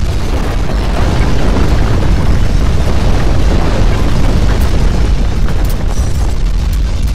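Loud, steady, deep rumble with a noisy roar on top: a simulated earthquake rumble effect.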